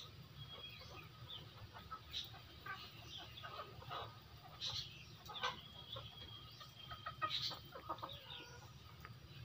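A flock of Indonesian native chickens (ayam kampung) clucking softly while they forage. Short calls come at irregular moments from several birds.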